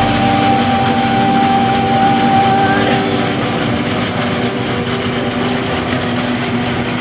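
A tractor and a forage harvester run steadily while chopping maize into a silage trailer. A steady high tone stops about three seconds in.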